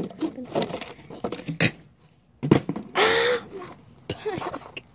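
A partly filled plastic water bottle knocking and clattering on concrete, a few sharp knocks spread out with the strongest about one and a half seconds in and another just before the halfway mark. About three seconds in comes a short, loud, breathy vocal cry.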